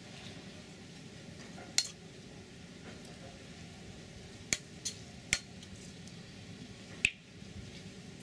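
A metal spoon stirring a bowl of chili dipping sauce, clinking sharply against the ceramic bowl about five times at uneven intervals, over a low steady background hiss.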